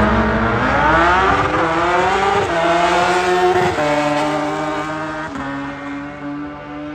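Drag racers launching hard and accelerating down the strip, engine pitch climbing with three sudden drops as they shift up through the gears. The sound grows fainter toward the end as they pull away.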